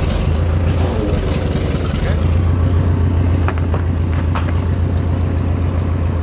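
A JCB digger's engine running steadily at idle. A few sharp clicks and knocks come a little past halfway through.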